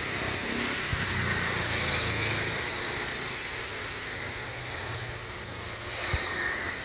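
Airbus A321-231's twin IAE V2500 jet engines running at taxi power, a steady distant rumble and hiss as the airliner taxis and turns. Wind buffets the microphone, with a low thump about a second in and another near the end.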